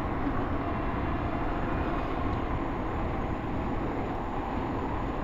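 Steady noise of heavy interstate traffic: a continuous stream of cars passing on the highway, tyres on the road and engines blending together.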